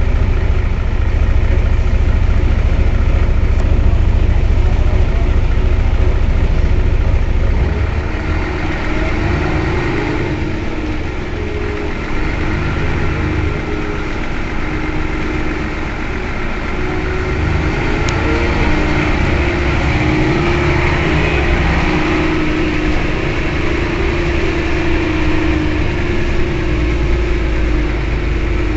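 Mercedes-Benz O 405 N city bus's diesel engine running, with a heavy low rumble for about the first eight seconds. After that the level drops a little and a steady whine comes in and holds.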